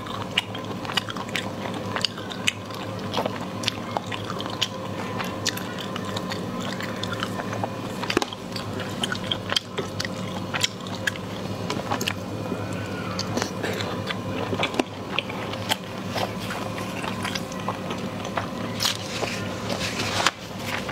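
Close-up mouth sounds of a person eating: chewing and biting, with many sharp clicks and crunches throughout, over a steady low hum.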